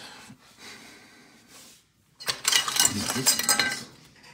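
Clatter of small hard objects being knocked over: a dense run of clinks and rattles lasting about a second and a half, starting a little over two seconds in.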